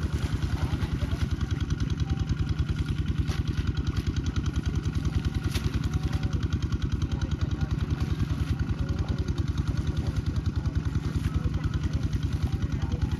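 A small engine running steadily with a fast, even chugging that does not change.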